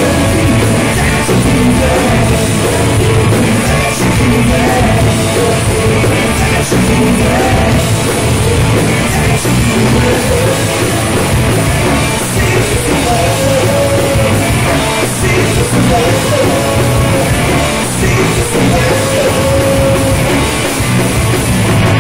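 Live rock band playing: two electric guitars, electric bass and a drum kit, with male voices singing the melody over them.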